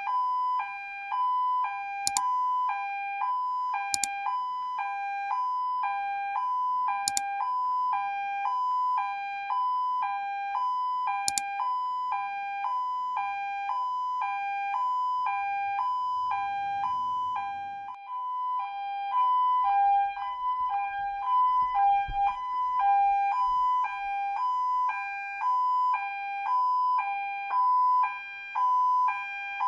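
Electronic two-tone siren from a toy police van's light-and-sound module, repeating a steady hee-haw between two tones, with a few sharp clicks in the first half and a brief break about two-thirds of the way through.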